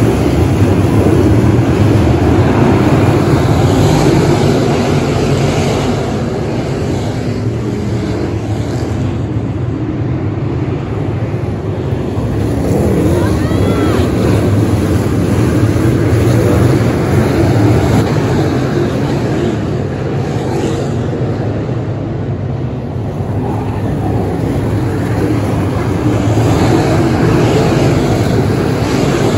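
A pack of dirt late model race cars running hard around a dirt oval, the V8 engines' drone swelling as the field comes by and easing as it goes down the far side, several times over.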